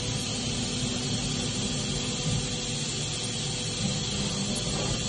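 2002 Saacke HGI 4 CNC hob sharpening machine running with a steady hum and hiss during its automatic probing cycle, as the touch probe is moved up to the hob's teeth.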